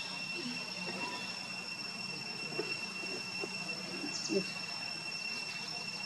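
Forest ambience with a steady high-pitched insect drone and a few faint, short soft sounds.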